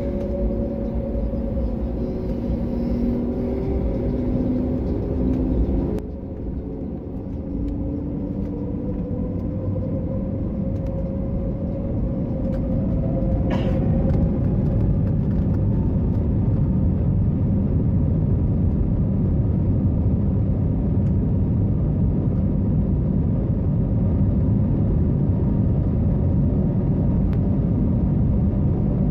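Airbus A321neo cabin noise while taxiing: a steady low rumble of the engines and rolling gear, with faint engine tones slowly gliding in pitch. It grows louder about halfway through and then holds.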